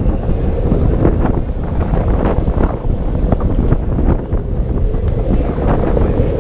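Wind buffeting the microphone of a camera riding along on a moving bicycle: a loud, steady low rumble with scattered faint ticks.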